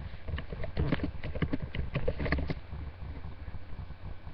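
A quick, irregular run of clicks and knocks close to a laptop webcam's built-in microphone, over a low rumble; it thins out about two and a half seconds in.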